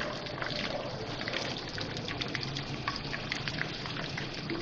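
Batter-coated surmai (kingfish) fingers frying in hot oil in a pan: a steady sizzle full of quick small crackles and pops.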